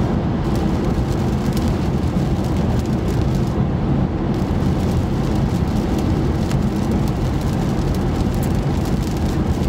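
Steady road noise inside a moving car on wet, rain-slick roads: tyre hiss and engine hum.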